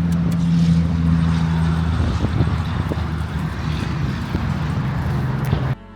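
A steady low mechanical drone with a rushing noise over it and a few faint clicks, cut off suddenly near the end.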